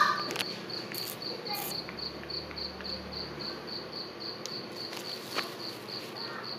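A cricket chirping steadily, a short high-pitched pulse repeated about four times a second. A sharp click right at the start is the loudest sound, with a few fainter clicks later on.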